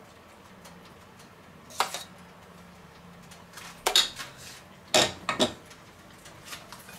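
Metal spoon clinking and scraping against a stainless steel mixing bowl, a few sharp clanks about two, four and five seconds in, the last ones as the bowl is handled and put down.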